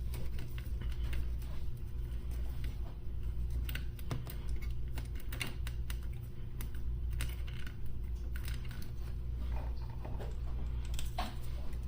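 Small irregular clicks and taps of tools and parts being handled on an electronics workbench while a circuit board is cleaned of burnt flux with rubbing alcohol, over a steady low electrical hum.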